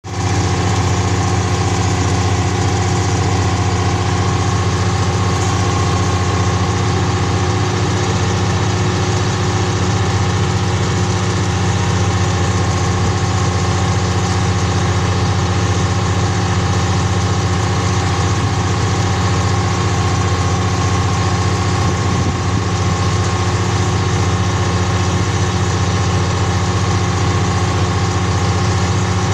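Diesel engine of a truck-mounted crane running at a steady, unchanging speed.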